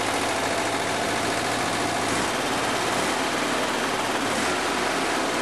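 Freshly rebuilt 1967 Volkswagen 1600 air-cooled flat-four engine running steadily on a run stand. Its carburetors are not yet balanced and its ignition timing still needs correcting, though it sounds pretty good.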